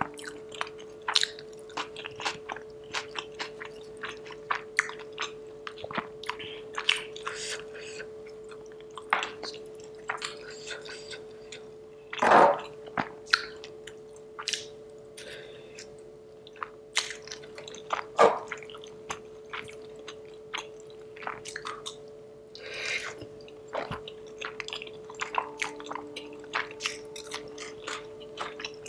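Close-miked chewing of vegetable biryani with raita: wet mouth clicks and smacks throughout, two louder smacks about twelve and eighteen seconds in, over a faint steady hum.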